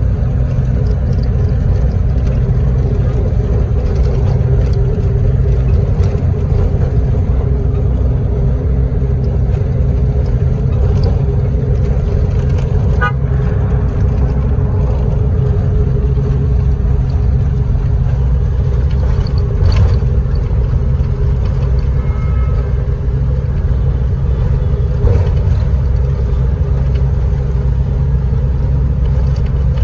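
City bus engine running steadily in busy traffic, a constant low rumble and hum, with brief vehicle horn toots now and then.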